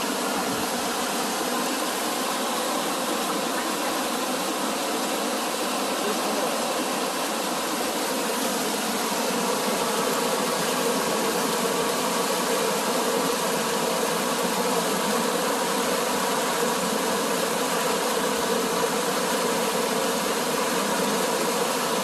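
Mountain stream rushing over rocks and pouring down a small cascade: a loud, steady rush of water, a little louder from about ten seconds in.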